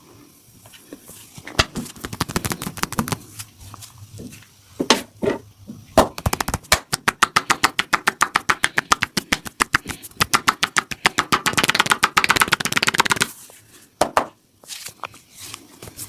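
Massaging hands slapping on the body in a fast even rhythm, about eight strikes a second for roughly seven seconds, with a few scattered slaps before it.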